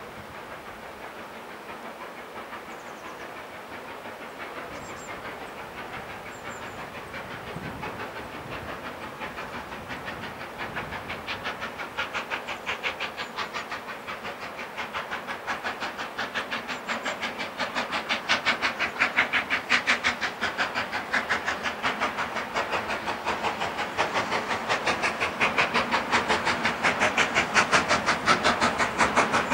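Steam locomotive approaching with its train, its exhaust beating in a fast, regular rhythm with a hiss of steam. The beats start faint and grow steadily louder as it draws near.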